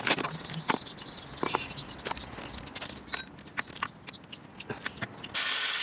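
Irregular clicks, taps and light knocks of hand tools and metal parts being handled while working on a car engine. A loud steady hiss starts near the end.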